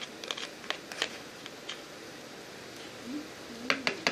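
Scattered sharp clicks and ticks of a glue-and-dish-soap slime mixture being stirred in a container as it starts to clump, in a cluster at the start and again near the end.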